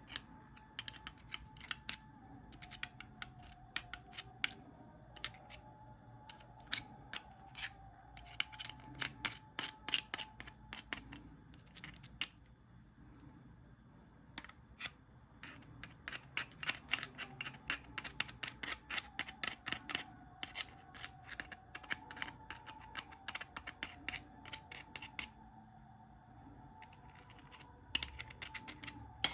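Runs of rapid small mechanical clicks and snaps, in clusters with short pauses, over a faint steady hum.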